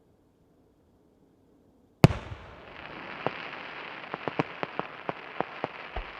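An aerial fireworks shell bursting with one sharp, loud bang about two seconds in, followed by a steady crackling hiss with a run of about ten sharp pops as the burst's effects go off.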